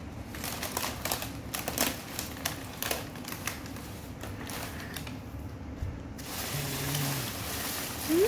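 Crumpled brown packing paper crackling in irregular bursts as a cat rolls and paws inside it, then rustling more steadily. A short rising squeak comes near the end.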